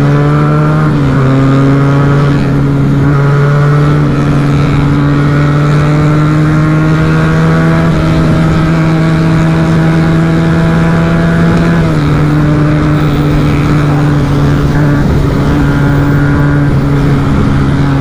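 Benelli Tornado motorcycle engine pulling at highway speed, heard from the rider's seat: a steady engine note that climbs slowly as the bike accelerates, then drops a step about twelve seconds in and holds steady, over constant wind rush.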